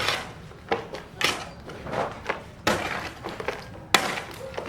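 Construction work: a string of sharp, irregular knocks and clatters, about seven in under five seconds, like tools striking building materials.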